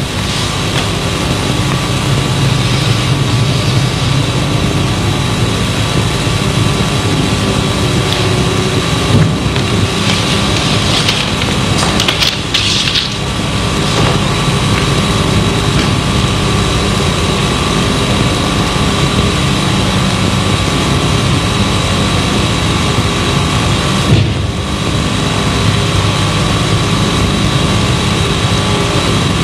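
Steady hum and hiss of an old film soundtrack, with a few brief knocks from the martial-arts performance.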